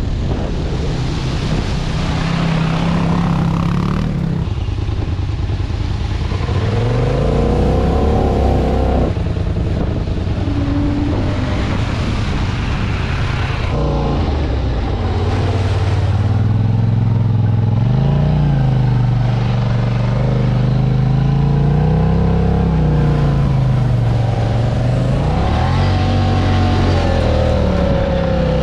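All-terrain vehicle engine running under way, its pitch rising and falling again and again as the throttle is opened and eased off.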